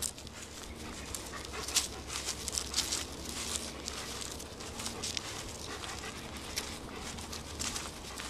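Black German Shepherd panting, a run of quick breaths.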